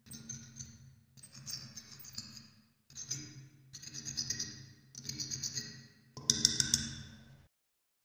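Scraping and brushing strokes on rusty metal over a steady low hum, in a run of short clips about a second each that start and stop abruptly; the last and loudest comes near the end.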